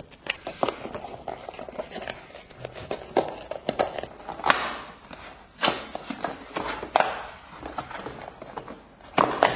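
A box of laundry detergent being opened by hand: irregular scrapes, tearing and sharp knocks, with several louder snaps about halfway through, near three quarters of the way and near the end.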